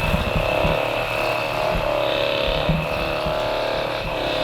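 A Hypervolt percussion massage gun runs steadily, its motor whining at an even pitch while its head pulses against the body during soft-tissue treatment of the hips and pelvis.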